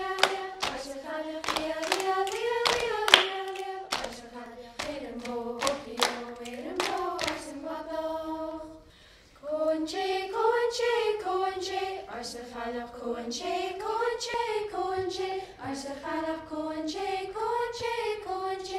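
Young voices singing a Gaelic mouth-music reel (puirt à beul) together on one melody line, kept in time by rhythmic hand claps and slaps of body percussion. About nine seconds in the singing breaks off briefly, then resumes with only a few light claps.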